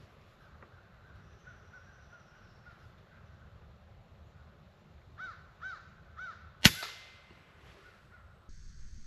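A single sharp crack of an FX Impact M3 PCP air rifle firing about two-thirds of the way in, the loudest sound, with a short fading tail. Just before it, a bird calls three times in short arched calls.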